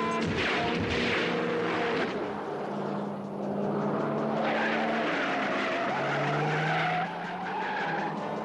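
Car tyres screeching and engine running hard as a car speeds away. The screech comes in two stretches with a short lull in between.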